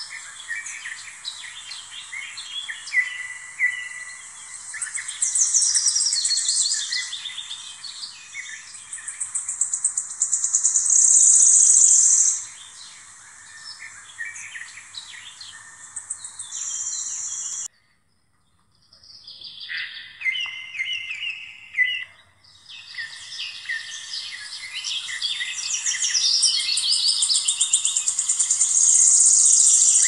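Many small birds chirping and twittering in the trees, with stretches of dense, high-pitched trilling. The sound cuts out suddenly for about a second just past the middle, then the chirping picks up again.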